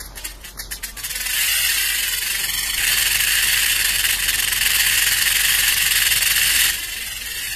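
Rattlesnake shaking its tail rattle. A few separate clicks build about a second in to a loud, continuous high buzz, which drops off sharply near the end. It is the snake's warning rattle, meant to keep large animals from stepping on it.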